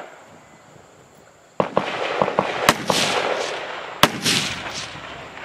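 Gunshots at a 3-gun match: one shot at the start, then after a pause of about a second and a half a string of shots, the loudest about a second apart. Each shot trails a long rolling echo.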